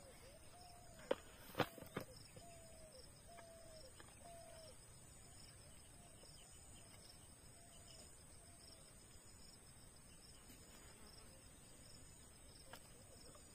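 Faint outdoor ambience: a steady high insect drone, with a bird repeating a short falling call note about every three quarters of a second for most of the first nine seconds. A few sharp clicks come between one and two seconds in.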